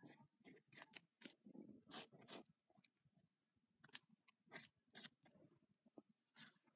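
Faint ballpoint pen scratching on lined paper in short, quick, irregular strokes as a drawing is sketched.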